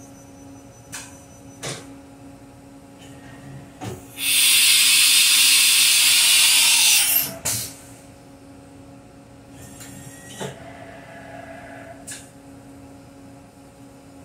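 1990 Haas VF-1 CNC mill's automatic tool changer retrieving a tool from its carousel, with several sharp clunks as the changer and spindle move. About four seconds in comes a loud hiss of compressed air lasting about three seconds as the spindle releases its drawbar for the tool change. A steady electrical hum runs underneath.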